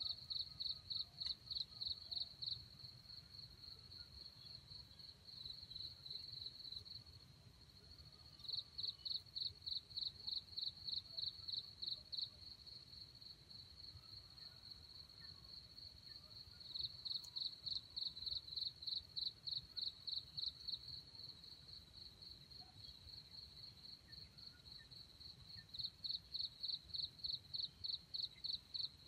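An insect, such as a cricket, calling with a steady high-pitched trill. Four times the trill breaks into a run of rapid pulses, about five a second, each run lasting a few seconds.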